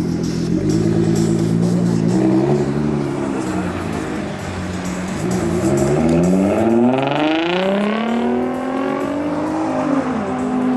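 2017 Nissan GT-R's twin-turbo 3.8-litre V6 running at a steady pitch, then revving up about five seconds in, its pitch climbing for a couple of seconds before falling back and settling to a steady note near the end.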